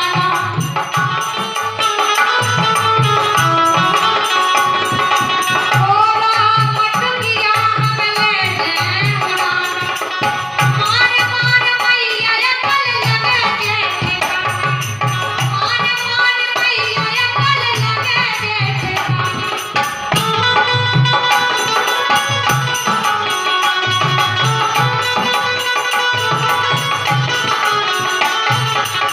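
Kartik geet, a Hindi folk devotional song: a woman singing over a steady hand-drum beat with rattling percussion.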